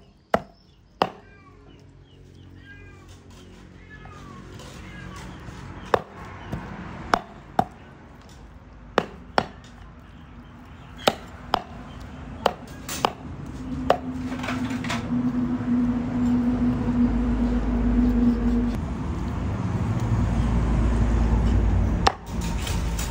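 A large kitchen knife chopping through raw pork leg onto a wooden chopping board: about a dozen sharp, separate chops spaced irregularly over the first half. In the second half a low rumble and a steady hum build up and carry on to the end.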